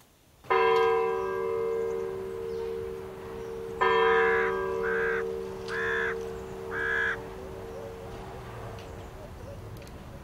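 A bell struck twice, about three seconds apart, each stroke ringing on and slowly dying away. Four short calls sound over the second stroke.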